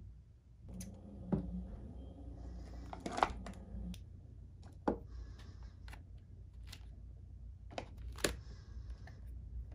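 Wooden chopsticks clicking and tapping against a plastic food tray and a paper cup as dumplings are lifted out: about ten sharp, scattered clicks, with a steady low hum in the first few seconds.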